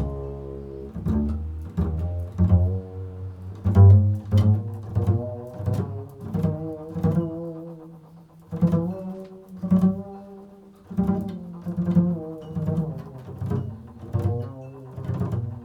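Improvised solo instrumental music: a run of low, plucked-sounding notes, one or two a second, each ringing out before the next.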